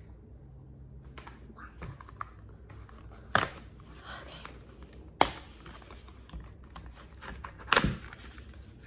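Fingers scraping and rustling at a small paperboard product box, with three sharp snaps as its glued top flap is prised open.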